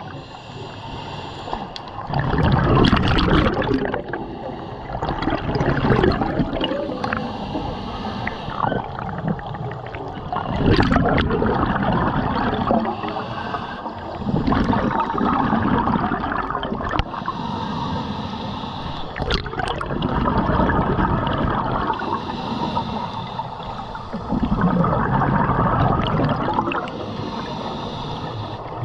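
Underwater scuba breathing through a regulator: bubbling exhaust gurgles surge every few seconds as the diver breathes out, with quieter stretches in between.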